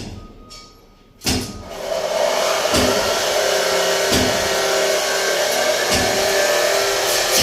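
A couple of sharp metal knocks, then an electric power tool starts about two seconds in and runs steadily at full speed, a loud even whine, in metal fabrication on a steel cable tray.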